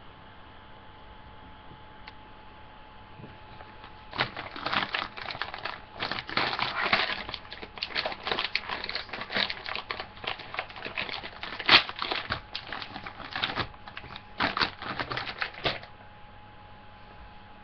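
Soft plastic packet of facial cleansing wipes crinkling and rustling as it is handled, in irregular bursts starting about four seconds in and stopping shortly before the end, with one sharp, louder crackle about halfway through.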